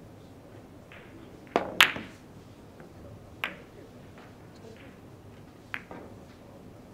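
A billiard shot: the cue tip hits the cue ball, then a sharp, loud click as it strikes another ball a moment later. Two fainter ball clicks follow, about two seconds apart, as the balls carry on around the table.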